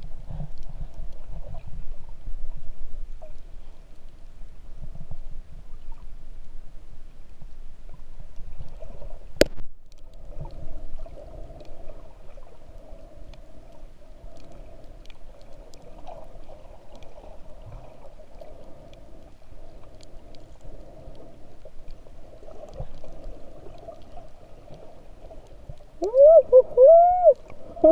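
Muffled underwater sound: a low rumble of water moving past the camera with a faint steady hum and one sharp click about nine seconds in. Near the end, loud wavering tones that rise and fall, like a voice heard underwater.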